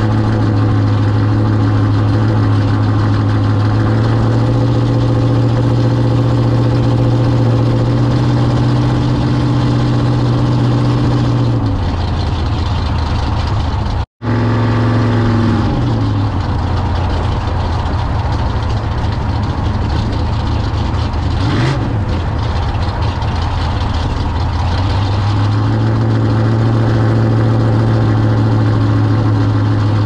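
Small-block Chevy V8 in a C10 pickup running through Black Widow "Neighborhater" straight-through mufflers at a steady cruise, with a rattly, open-header-like exhaust note. About twelve seconds in the engine note drops, cuts out for an instant, and falls further as the truck comes off the throttle. It climbs back to the steady cruising note near the end.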